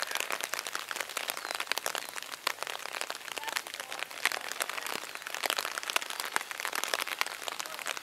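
Raindrops tapping on an umbrella close to the microphone: a dense, irregular patter of small crackling ticks.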